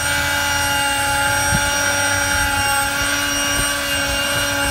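A steady machine hum made of several held tones over a low rumble, unchanging in pitch or level.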